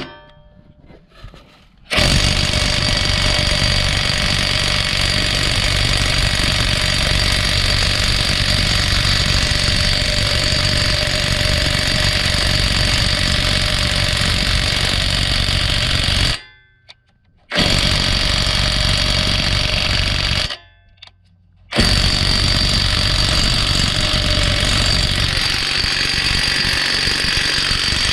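Cordless 1/2-inch drive right-angle impact wrench hammering continuously in three long runs, starting about two seconds in, with two short pauses.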